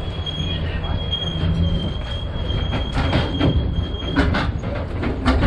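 Open-air fair tram rolling along, heard from its rear trailer car: a steady low rumble with a thin high squeal that stops about four seconds in, then a few sharp rattles of the trailer near the end.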